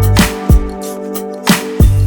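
Background music with a steady beat: deep bass, sustained keys and regular kick-drum and snare hits, in a rhythm and blues style.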